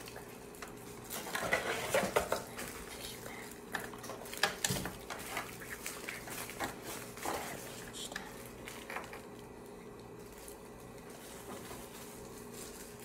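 Small plastic toy parts clicking and clattering as they are handled, with scattered sharp clicks that thin out after about nine seconds.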